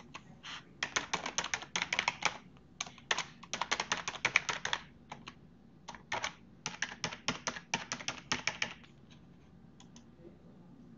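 Typing on a computer keyboard: rapid runs of keystrokes in bursts with short pauses, stopping about nine seconds in, followed by a few lone clicks.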